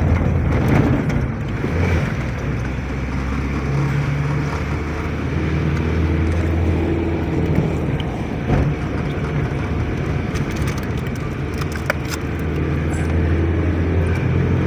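Motor vehicle's engine running steadily with road noise while driving.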